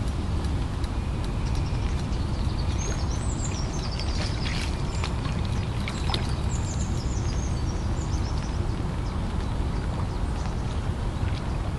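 Steady low outdoor rumble, with a small bird twittering in short high phrases midway.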